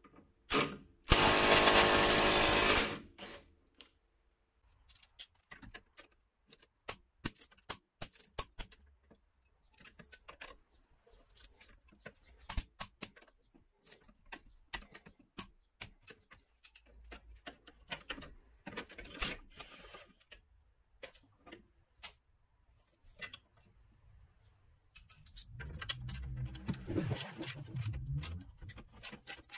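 Mechanic's tool work on a car's rear suspension. A power tool runs loudly for about two seconds near the start. Scattered clicks and clinks of metal tools and parts follow, then a rougher grinding mechanical run near the end.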